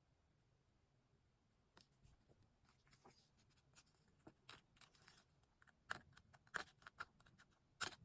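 Faint, scattered taps, clicks and paper rustles of diary-decorating materials (paper, stickers, small tools) being handled, starting about two seconds in.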